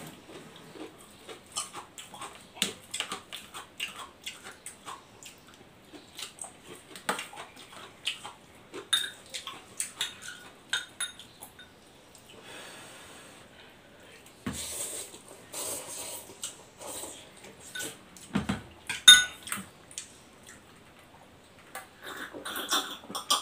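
Someone eating noodles close to the microphone: a fork clicking and scraping against a bowl many times, with chewing and slurping mouth sounds.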